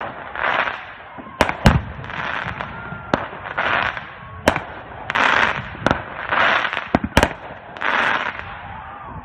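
Fireworks going off: sharp bangs several times, mixed with rushes of crackling hiss that swell and fade about once every second or so.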